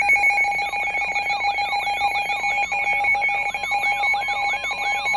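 Emergency alert attention tone: a loud, steady electronic alarm tone. From about a second in, a rapidly repeating swooping warble of about three sweeps a second is layered over it.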